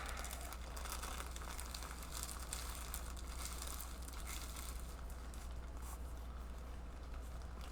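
Kit packaging being handled: soft crinkling and rustling with faint scattered ticks, over a steady low hum.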